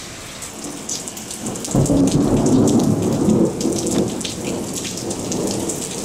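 A thunder rumble comes in sharply about two seconds in, is loudest for a second or two, then fades away, over steady rain with drops pattering.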